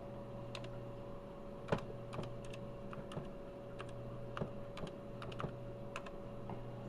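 Keystrokes on a TRS-80 Model 12 keyboard: irregular single clicks of keys being typed, over a steady electrical hum from the running computer.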